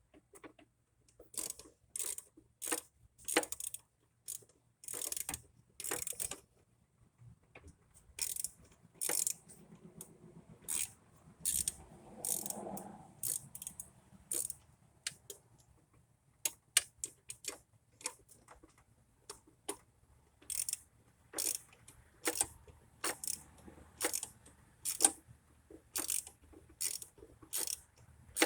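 Small socket ratchet clicking in short, irregular runs of strokes as it backs out a 10 mm bolt holding an EGR valve.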